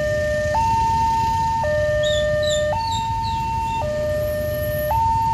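Railway level-crossing warning alarm sounding from the loudspeaker on the crossing pole: an electronic two-tone signal alternating between a lower and a higher tone, each held about a second, warning that a train is approaching. A low rumble of waiting traffic runs underneath.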